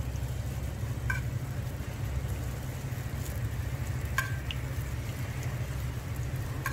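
Glutinous-rice hotteok frying in shallow oil on a flat griddle pan, a steady sizzle as the dough balls are pressed flat with a metal hotteok press. The sizzle sits over a steady low rumble, with brief clicks about one second and four seconds in.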